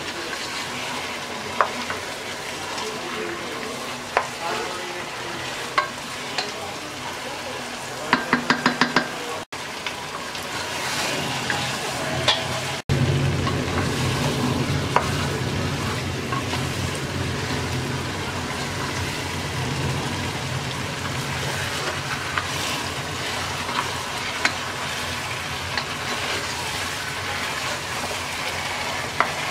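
Chicken pieces with tomato and spices sizzling in an oiled pot while being stirred, the spoon scraping and clicking against the pot now and then, with a quick run of taps a little after eight seconds. The chicken is being sautéed down on medium heat.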